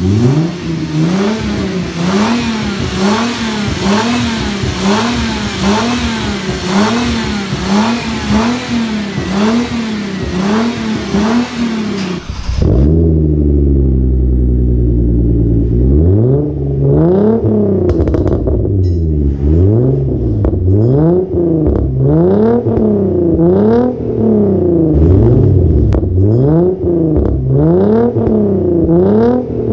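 Hyundai Genesis Coupe 3.8 V6 revved in quick repeated blips, about one a second, heard first at the engine bay with its aftermarket cone-filter air intake. About twelve seconds in the sound cuts to the engine idling steadily. It is then blipped again repeatedly through its true dual catback exhaust.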